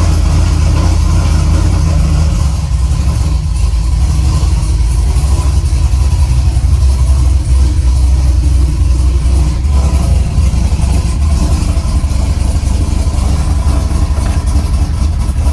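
Cammed LS V8 pickup engine idling loud and steady, heavy in the low end.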